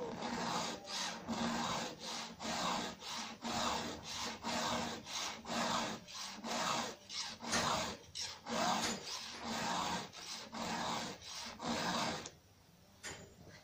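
Hand file stroking across the cutters of an Oregon EXL chainsaw chain on a Husqvarna 372XP held in a vise, sharpening the top angle of the teeth. The strokes come about two a second in a steady rhythm and stop near the end.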